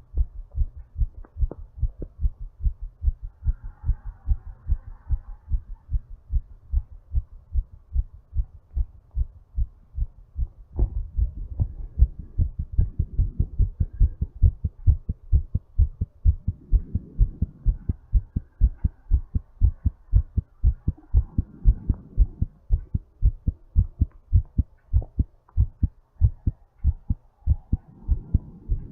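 A person's heartbeat picked up against the chest: a fast, steady train of low lub-dub thumps while the heart recovers from exercise. Soft breath sounds swell under the beats every five seconds or so.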